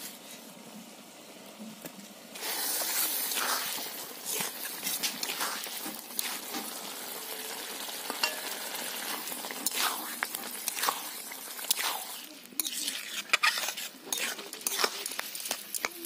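Spinach (palak) curry sizzling in a hot iron kadai. The sizzle starts suddenly about two seconds in as tomato pieces go into the pan, and a metal spatula stirs and scrapes against the pan, with more clinks near the end.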